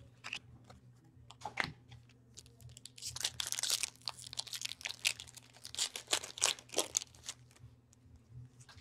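Trading-card pack wrapper crinkling and tearing as the pack is opened and handled. A few crackles come first, then a dense stretch of crinkling in the middle that dies away near the end.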